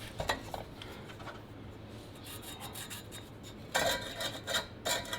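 Scratchy rubbing strokes on a steel exhaust pipe, a couple of faint ones at the start and two louder, longer scrapes near the end, as the pipe end is marked and worked for cleaning before welding.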